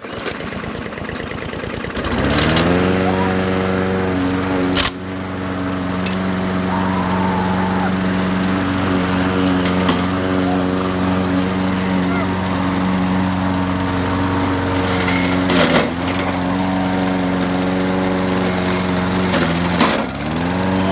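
A walk-behind gasoline lawn mower's small engine catches about two seconds in, revs up and settles into a steady run. There is a sharp knock a few seconds later, and near the end the engine bogs down briefly twice as the blade strikes a load, then recovers.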